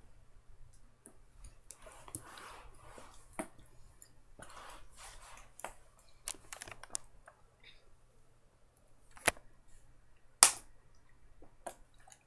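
Scattered light clicks and taps, with two sharper knocks near the end, the second the loudest.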